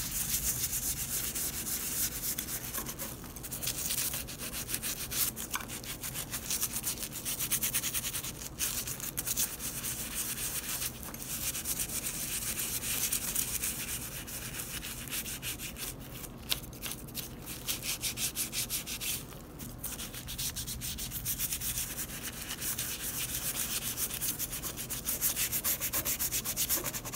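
Toothbrush bristles scrubbing a brass loom jack coated with Bar Keeper's Friend cleanser, in quick circular strokes, to scour off tarnish and built-up grime. The brisk scratching runs on with a few brief pauses.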